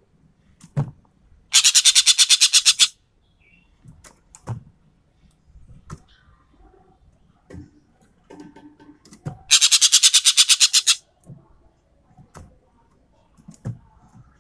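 Sumatran ekek keling bird giving its rapid-fire 'tembakan' call: two loud harsh rattling bursts, each about a second and a half of roughly ten pulses a second. The first comes about a second and a half in, the second near ten seconds. Short clicks and faint calls fall in between.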